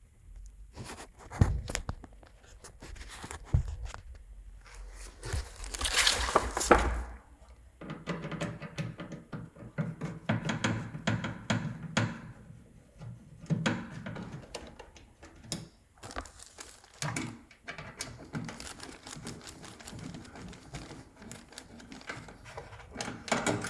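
Plastic parts of a microwave door being taken apart by hand: irregular clicks, knocks and rubbing as screws are undone and pieces are popped off, with a longer scraping noise about six seconds in.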